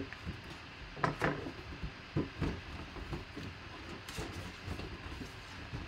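Cardboard box being opened by hand: cardboard flaps and inserts sliding and scraping, with a few short knocks and rustles.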